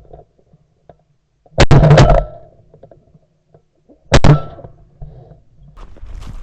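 Two shotgun shots about two and a half seconds apart, each a loud blast with a brief echo.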